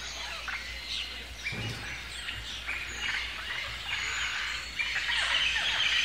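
Many birds chirping at once, a chorus of short falling calls that grows denser about five seconds in.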